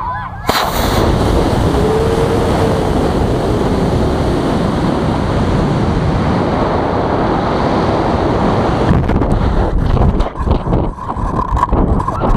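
Aerotech F26-6FJ model rocket motor igniting about half a second in with a sudden loud rush, followed by a steady rushing noise of the motor and air streaming past the onboard camera as the rocket climbs. In the last few seconds the rushing breaks up into choppy, gusty wind buffeting.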